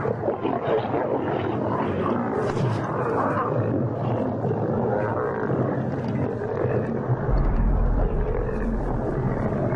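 Several lions growling and snarling continuously as they crowd and squabble over a zebra carcass while feeding. A deeper low rumble joins about seven seconds in.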